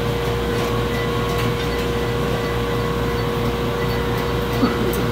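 Steady drone of a running blower fan, with a constant whine over a low hum and a couple of faint knocks.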